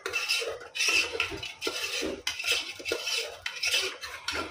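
Small steel spoon stirring thick masala paste in a black pressure cooker, scraping and clinking against the pot's sides and base in a quick, uneven run of strokes.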